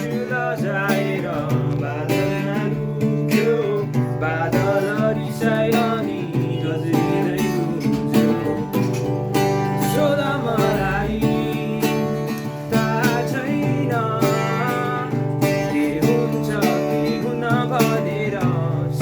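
Background music: a song with strummed acoustic guitar and a singing voice over it.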